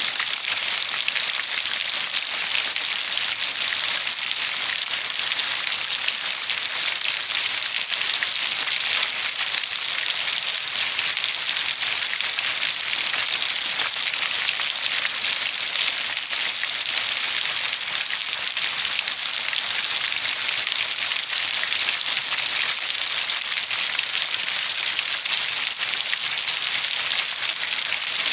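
Steady heavy rain falling, a dense, even patter without let-up.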